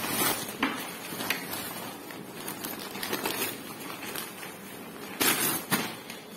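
A thin plastic package being handled and unwrapped, crinkling and rustling throughout with a louder burst of crackling a little after five seconds in.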